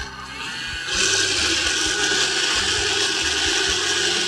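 A loud, steady rushing hiss that swells up over about the first second, over a low pulsing beat.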